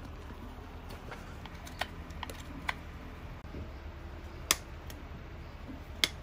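A few scattered sharp clicks and taps from a farrier's steel hand tools and pulled horseshoe nails as he works a horse's hoof, over a low steady background noise.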